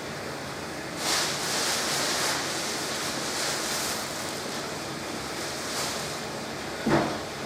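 Electrolux washing machine running mid-cycle: water and laundry swishing in the turning drum, in swells, with a dull thump near the end.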